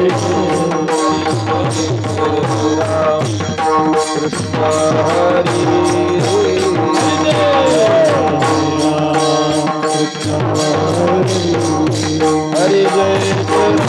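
Devotional bhajan music: a hand drum and sharp, ringing strokes keep a fast, even beat over steady held tones, with a voice sliding through a wordless sung phrase about six to eight seconds in.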